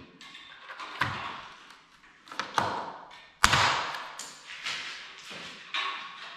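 Hand rivet tool setting blind rivets through a PVC-coated metal angle strip into a composite pool's wall: a series of sharp clicks and snaps, the loudest about three and a half seconds in, as the tool is squeezed and the rivet stems break off.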